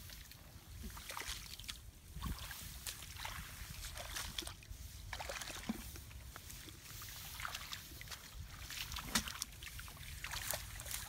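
Hands sloshing and groping through shallow muddy water among thick grass, making small irregular splashes and rustles.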